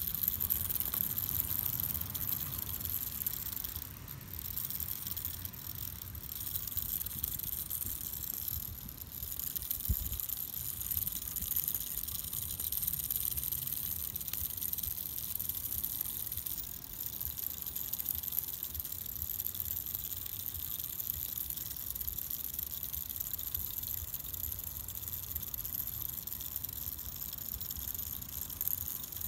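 Steady outdoor background noise: an even high hiss over a low rumble, with no distinct events.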